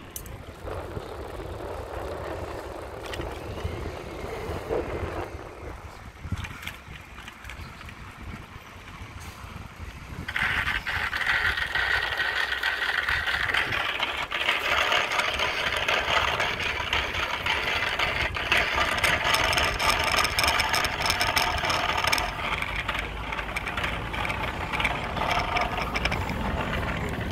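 Ongoing bicycle-ride noise: wind rumble on the microphone with tyre and road noise and occasional rattling clicks. About ten seconds in it gets louder and brighter, with a steady hiss and hum, and stays that way.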